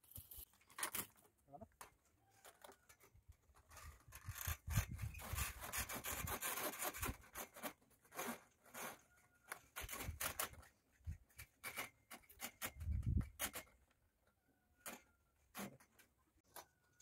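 Corrugated plastic electrical conduit being pulled and fed up through a steel rebar column cage: irregular rustling, scraping and clicking of the ribbed plastic against the bars. A longer stretch of rubbing comes a few seconds in, and a dull thump about two-thirds of the way through.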